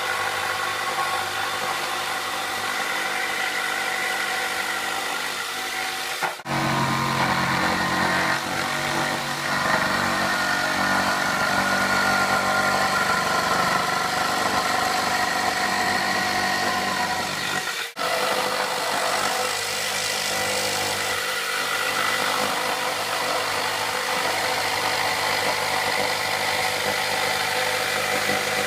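Electric saber saw running and cutting into a wooden door jamb for a latch cutout. It is a steady motor buzz with two very short breaks.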